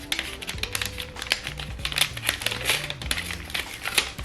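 Soft background music with a moving bass line and held melody notes, over repeated crinkling and rustling of gift wrapping and packaging being handled and opened.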